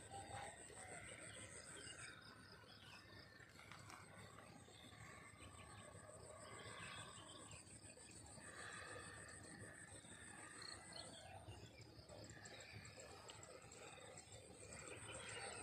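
Faint outdoor ambience: a high, rapidly pulsing insect trill that fades about two seconds in and comes back near the end, over a low hiss with scattered faint chirps.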